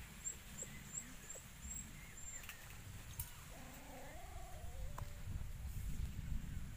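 Faint outdoor ambience with a low rumble on the microphone. A bird gives a quick run of about six thin, high chirps in the first two seconds, and a short wavering call sounds about halfway through.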